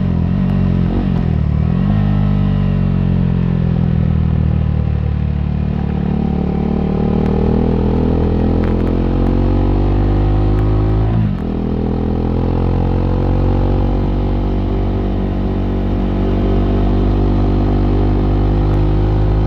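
KTM 390 Duke's single-cylinder engine pulling under way, its pitch slowly rising as the revs build. The revs dip briefly about a second in and sharply around eleven seconds, then climb again.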